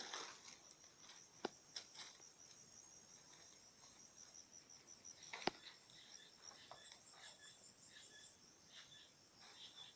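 Faint insect trilling, a rapid even pulse that stops about five and a half seconds in, with another short high trill later. Two sharp clicks stand out, the louder one about five and a half seconds in.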